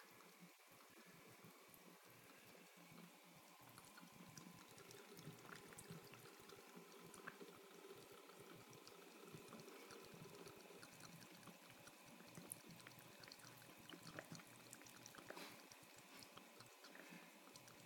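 Faint trickle of a thin stream of water running from a bathroom sink faucet, with small soft clicks of a cat lapping at the stream.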